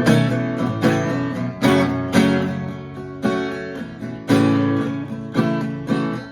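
Acoustic guitar played freestyle: chords strummed about once or twice a second, each ringing out and fading before the next.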